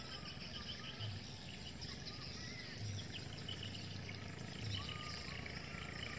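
Riverside forest ambience: scattered short bird chirps and whistles and insect calls over a steady background hiss, with a few soft low thumps.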